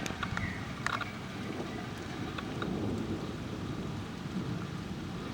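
Distant thunder from a supercell thunderstorm, a low steady rumble, with a few faint clicks in the first second.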